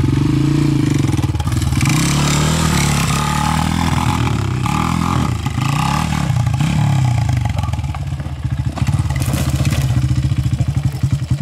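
1995 Honda XR200's single-cylinder four-stroke engine pulling hard up a steep trail climb, its pitch rising and falling with the throttle, with scattered knocks and clatter from the bike over rough ground. The engine note turns choppier in the last few seconds.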